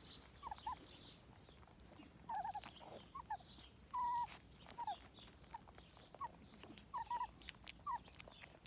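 Kangal puppies whimpering and squeaking: a dozen or so short high squeaks and whines, with one longer whine about four seconds in.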